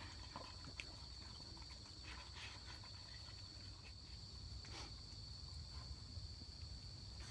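Faint, steady high-pitched chirring of crickets, with a few faint clicks scattered through it.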